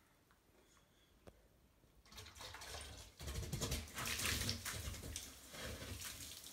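Baking soda slurry poured from a plastic jug into a bottle of vinegar, splashing over the bottle and onto the bathtub floor as the mixture fizzes and foams up. It starts about two seconds in and is loudest midway.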